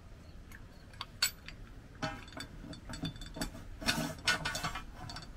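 A ladder-rack sliding mount assembly clicking and rattling as it is pushed into and along a slotted steel strut channel: a few single sharp clicks, then a busier run of metal clatter from about two seconds in.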